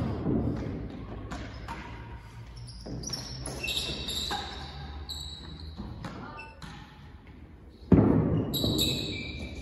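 Real tennis rally: the hard ball knocked by racquets and rebounding off the walls and floor of the enclosed court, irregular sharp knocks echoing in the hall. A loud dull rumble sets in suddenly about eight seconds in.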